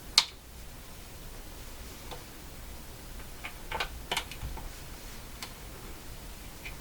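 A few sharp clicks and taps as clip leads are handled and clipped onto a small speaker's terminals, the loudest just after the start and a small cluster about four seconds in, over a faint low hum.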